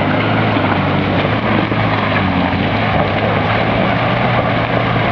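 Off-road vehicle engine running steadily under load, a constant low hum under a dense rushing noise.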